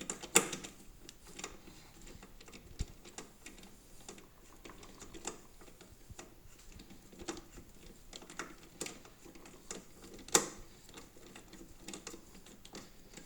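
Irregular small clicks and taps of hand assembly work: a self-tapping screw being driven in with a hand screwdriver on the shredder's frame. Two sharper knocks come about half a second in and again around ten seconds in.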